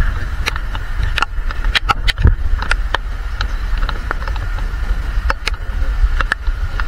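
Rain falling, with drops striking the phone's microphone as sharp, irregular clicks over a steady low rumble.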